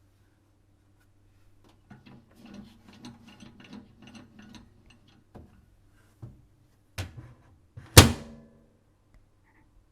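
Microwave oven door being worked: a run of light clicks and rattles, then two sharp knocks a second apart, the second and loudest, about eight seconds in, with a short ring as the door shuts on its latch. A low steady hum sits underneath.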